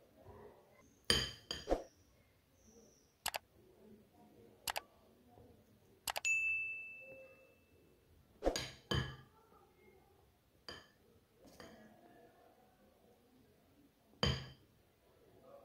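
Silicone spatula folding egg yolks into whipped egg whites in a glass bowl: soft squishing of the foam broken by about ten sharp clinks of the spatula against the glass, one a little past the middle leaving the bowl ringing for a second or two.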